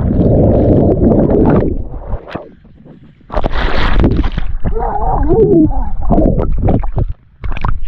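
Pool water heard through an underwater camera: muffled rushing and bubbles gurgling, dipping quieter after about two seconds, then a loud rush of bubbles about three seconds in, followed by wavering gurgles and crackles.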